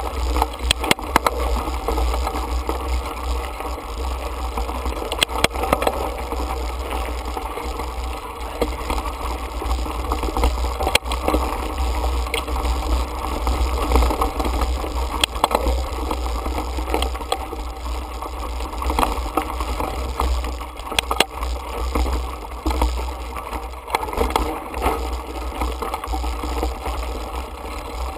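Mountain bike rolling over a rocky dirt singletrack, heard from a handlebar-mounted camera: a steady low rumble with constant rattling and clicking as the bike and mount jolt over stones and gravel.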